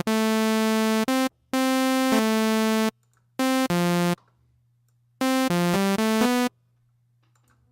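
AIR Hybrid 3 software synthesizer on its default patch: a bright, buzzy raw tone played as keyboard notes of changing pitch that start and stop abruptly, with short silent gaps between groups of notes.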